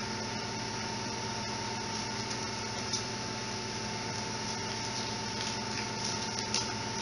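Steady indoor room tone: an even mechanical hum with a constant high whine, like a fan or ventilation unit running, with a few faint clicks near the end.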